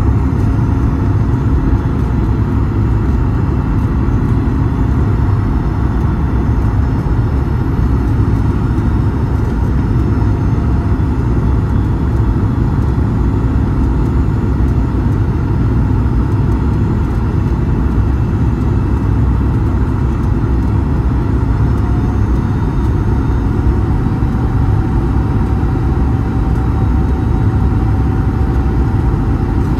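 Steady cabin rumble inside a Boeing 737 MAX 8 on approach: airflow and CFM LEAP-1B turbofan engine noise heard from a window seat over the wing, with a faint whine that rises slightly about two-thirds of the way in.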